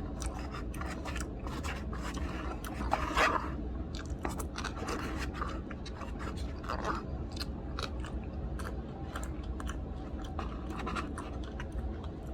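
A person chewing food close to the microphone: wet mouth clicks and smacks throughout, over a steady low background hum.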